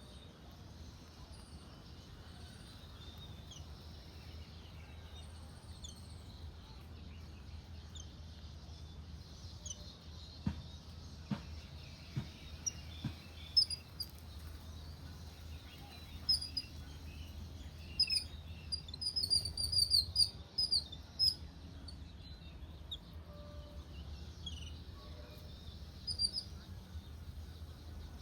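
Songbirds chirping and calling in short high notes, with a quick run of louder chirps about two-thirds of the way through. A few soft knocks come near the middle, over a steady low background hum.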